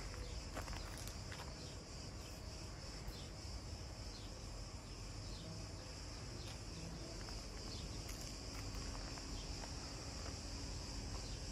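Steady high-pitched buzzing of insects in the heat, with a few faint crunching steps on gravel.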